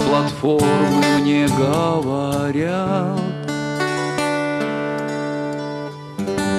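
A man singing a slow song to his own acoustic guitar. His voice ends about three seconds in, and the guitar chords ring on, with a brief break near the end.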